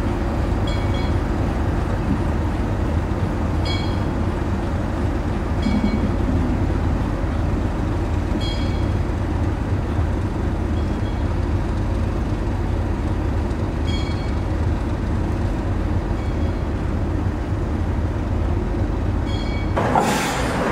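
Steady low rumble with short high chirps every few seconds, and a louder, noisier sound starting near the end.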